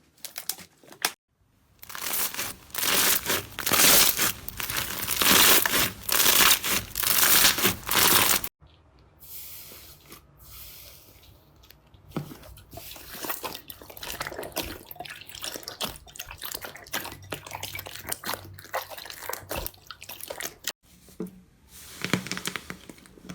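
Slime being squeezed and worked by hand, giving a dense run of rapid crackly clicks and pops, loud for several seconds. It cuts off suddenly into a quieter stretch of softer squishing and scattered clicks.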